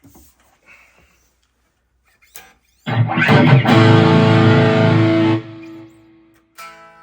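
Electric guitar played through a Line 6 modeling amp with distortion. After a few faint handling noises, a loud distorted chord is strummed about three seconds in. About five seconds in it drops sharply to a quiet held note, and new notes are picked near the end.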